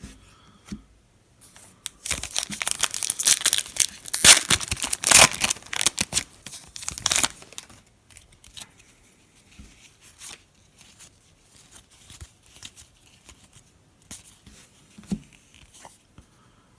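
A Donruss football trading-card pack being torn open: several seconds of loud tearing and crinkling of the wrapper, followed by faint rustles and clicks as the cards are handled.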